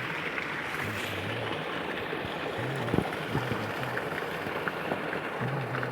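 Steady rush of running water, with faint short low notes underneath and a single sharp click about three seconds in.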